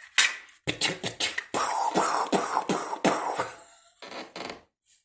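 A woman imitating machine-gun fire with her mouth: a rapid run of spitting, percussive bursts, densest in the middle and then a shorter burst near the end.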